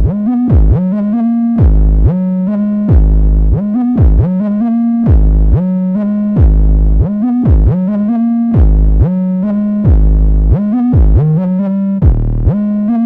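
Electronic music: synthesizer notes that slide in pitch over a deep, pulsing bass, repeating at a steady tempo.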